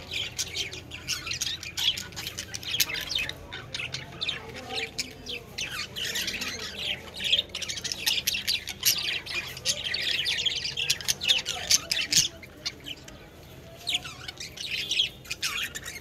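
A flock of budgerigars chattering continuously, a dense mix of quick chirps and short squawks that thins out briefly about three-quarters of the way through.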